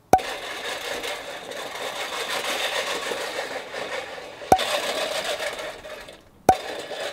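Manual push reel mower whirring and clattering as its spinning reel blades cut grass. A sharp click breaks in just after the start, again about four and a half seconds in, and once more near the end.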